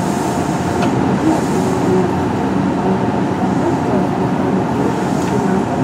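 Kintetsu 1420 series electric train with a Mitsubishi GTO-VVVF inverter running, heard on board: a steady rumble of wheels on rail with faint steady motor tones underneath.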